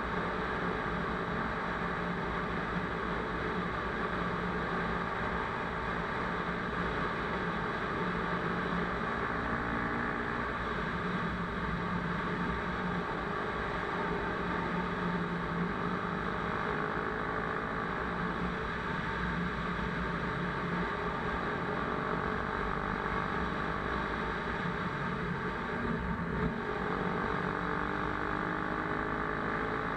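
Dirt bike engine running and revving up and down, its pitch rising and falling again and again over a steady noise.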